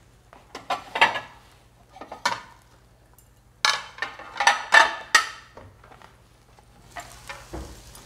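Ceramic dinner plates clinking and clattering as they are taken out of a cupboard and handled. The clatter comes in a few short bursts, and the densest, loudest run is about four to five seconds in.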